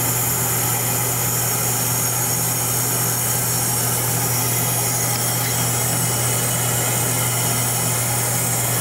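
Steady low machine hum with a constant hiss over it, unchanging throughout: workshop machinery running.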